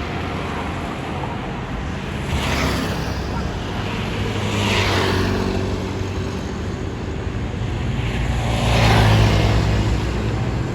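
Heavy vehicles, buses among them, driving past in road traffic with engines running. Three passing swells of engine and tyre noise rise and fall, the loudest near the end.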